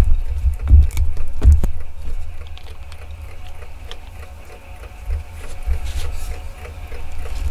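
A knife and hands at work on a tabletop: bread and salo being cut and handled and a plastic wrapper handled. Sharp knocks come in the first second and a half, over a low rumble, and a faint, even ticking runs through the rest.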